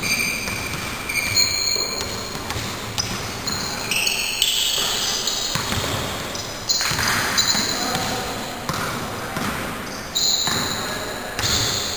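Basketball bouncing on an indoor court floor as it is dribbled and played, irregular thuds echoing in a large hall.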